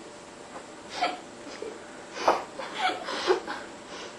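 A person making short breathy non-speech sounds: four quick bursts, one about a second in and three close together between two and three and a half seconds in.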